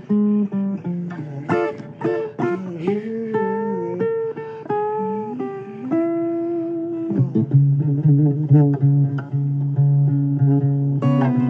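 Blues guitar instrumental break: single plucked notes, several bent up and down in pitch, over lower held bass notes.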